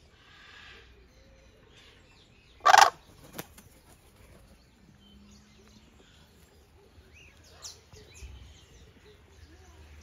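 Aviary birds, with one loud, short, harsh burst about three seconds in, a smaller sharp sound just after it, and fainter bird sounds around.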